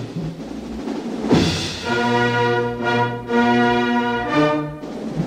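Orchestral soundtrack music: a drum hit about a second in, then held brass chords that change a couple of times.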